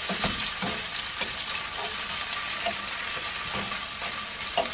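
Slices of black pudding sizzling steadily in hot fat in a non-stick frying pan on high heat, with a few light clicks and scrapes of a fork against the pan.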